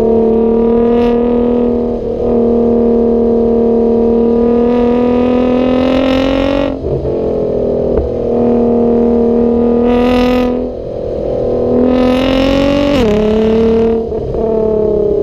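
Nissan GT-R R35's twin-turbo V6, fitted with a full HKS exhaust, running hard under load on a race track. Its droning note climbs slowly and breaks off briefly a few times, with short rushes of turbo and intake noise, and drops sharply in pitch near the end as the driver shifts.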